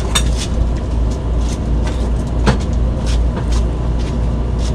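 Steady low rumble of an idling vehicle engine close to the microphone, with scattered light clicks and knocks, one sharper knock about halfway through.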